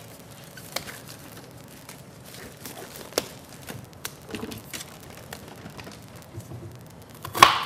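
Scattered light clicks and knocks of kitchen utensils and dishes being handled on a counter, with one louder, brief clatter near the end.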